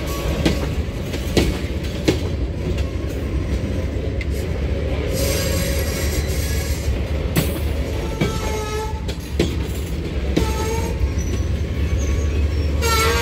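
Train rolling by: a steady low rumble with scattered clicks of wheels over the rails. From about eight seconds in, wavering high squealing tones come and go, strongest near the end, typical of wheel squeal.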